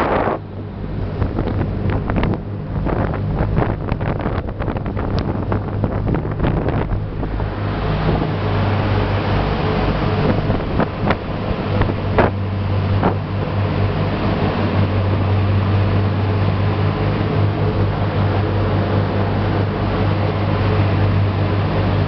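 A ship's engines running with a steady low hum, under the rush of the ship's wake and wind buffeting the microphone; the gusts die down after about seven seconds.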